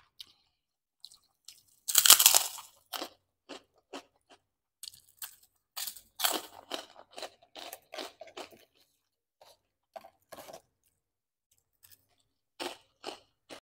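Bites and chewing of crisp fried kerupuk crackers: one loud crunch about two seconds in, then a quick run of smaller crunches as the pieces are chewed, a lull, and a few more crunches near the end.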